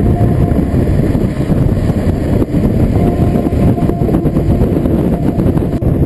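Heavy wind rumble buffeting the camera microphone as a mountain bike rolls fast downhill on pavement: a loud, steady low roar with little above it.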